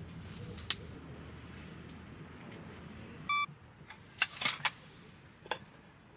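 A low, steady rumble that fades away, with scattered sharp clicks and one short electronic beep about three seconds in. The loudest sounds are a quick cluster of clicks just after the beep.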